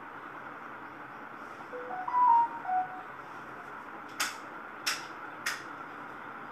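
A short electronic chime of about five quick notes, rising then falling, over a steady hiss, followed by three sharp clicks roughly half a second apart.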